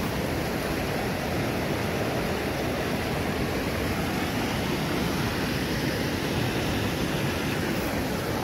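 Steady rushing noise, even throughout, with no separate knocks or calls.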